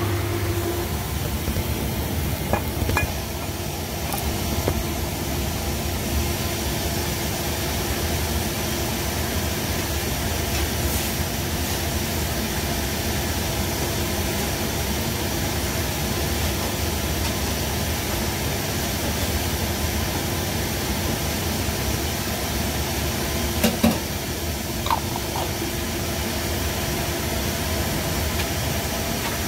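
Kitchen range hood exhaust fans running with a steady rushing noise, with a few faint clicks and a couple of short knocks near the end.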